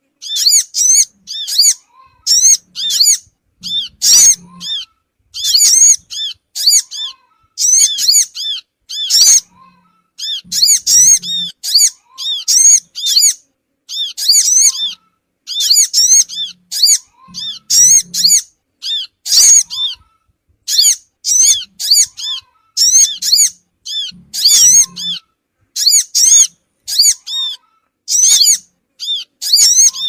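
Bird-lure recording of sogon (sunbird) calls: short bursts of high, rapid twittering chirps, about one to two bursts a second, repeating over and over.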